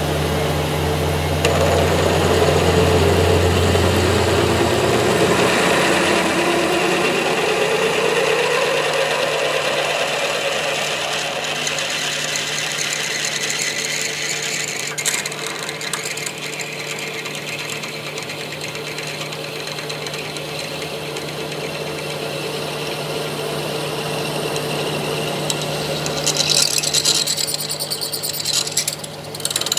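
A metalworking machine tool running steadily on steel, with a constant hum and a pitch that slides in the first several seconds. Near the end, a harsher, hissing cutting sound comes in for a few seconds.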